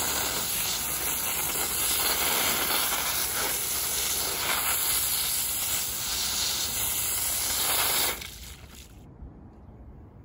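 High-pressure jet from a hand-held hose nozzle blasting soil out of an aluminum anthill casting: a loud, steady hiss that cuts off about eight seconds in.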